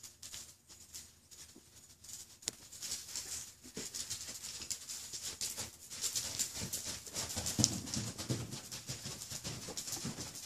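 Horse's hooves striking and scuffing arena sand at a canter, a dense, irregular patter of soft crunchy clicks that grows busier about two and a half seconds in and louder from about six seconds.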